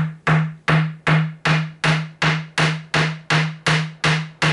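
Hammer tapping a small flat-headed nail into a wooden end table, with steady light blows at about three a second, each giving a short wooden knock.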